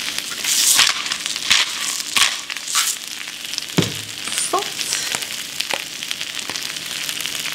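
Spinach sizzling in butter on an electric griddle, a steady hiss. Over it, hand salt and pepper grinders are twisted in several short bursts of grinding during the first three seconds, with a few light knocks later on.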